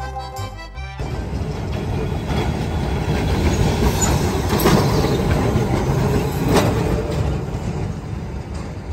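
Background music stops about a second in. Then a passing vehicle makes a loud rumble that swells to a peak midway and fades, with two sharp knocks near the middle.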